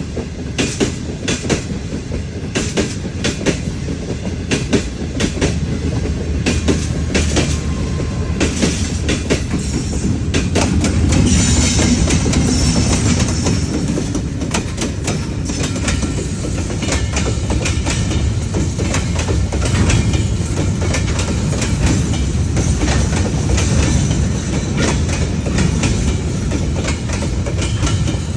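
Train wheels clacking over rail joints in a fast, uneven run of clicks over a steady low rumble. A brief high-pitched squeal or hiss rises above it about eleven seconds in.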